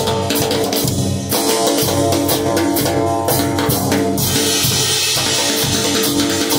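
Drum kit played with sticks, with cymbals ringing steadily, along with music carrying guitar and bass lines.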